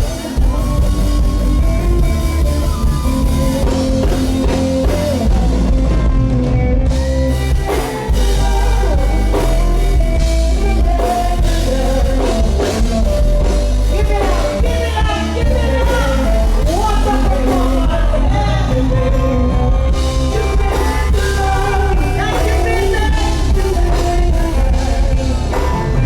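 Live band music with heavy bass and a drum kit, and a voice singing over it.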